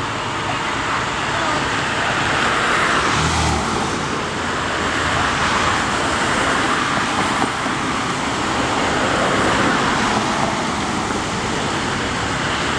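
Road traffic: cars passing close by one after another, each swelling and fading over a steady road noise.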